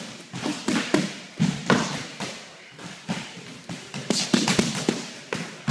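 Punches and kicks landing on handheld striking pads and bags: an irregular string of sharp slaps and thuds, several in quick bunches.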